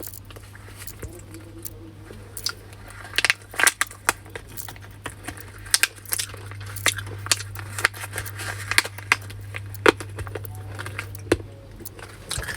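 Plastic snack packet being handled and torn open, with irregular crinkling and crackling, over a steady low hum.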